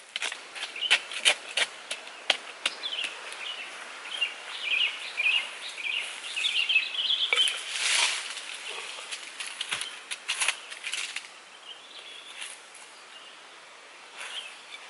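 Hands scraping and tapping in dry soil and handling rough stones, a run of sharp clicks and knocks with a scrape in the middle, while birds chirp busily in the background for a few seconds.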